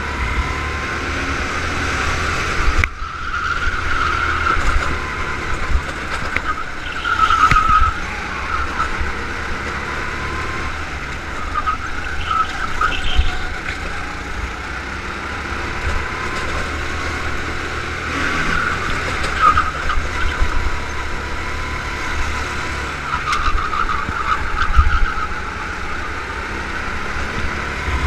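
Go-kart engine running at racing speed through a lap, with wind rumbling on the onboard microphone. Tyres squeal in several bursts through the corners.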